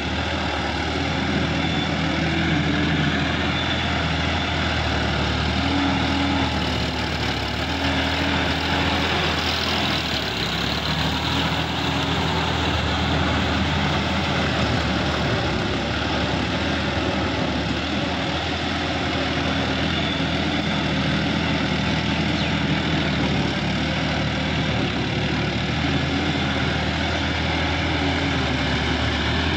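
Sonalika DI-50 RX tractor's diesel engine running steadily under load while driving a rotary tiller that churns through wet, flooded mud.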